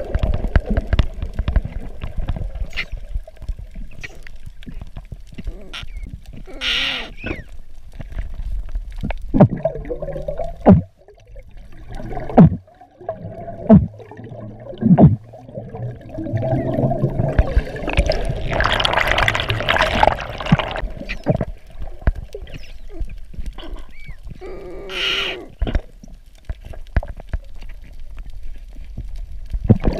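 Underwater sound heard through a camera housing: gurgling rushes of exhaled air bubbles rising, three times, the longest about halfway through. Scattered clicks and knocks on the housing come over a steady low rumble.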